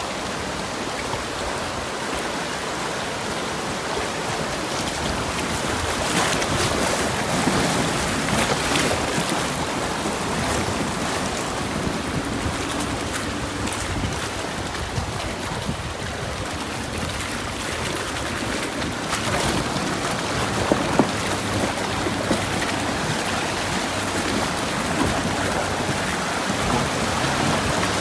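Steady rush and splash of river water churned around a 4x4's wheels as it drives through a shallow, fast-flowing river, with a few brief louder splashes.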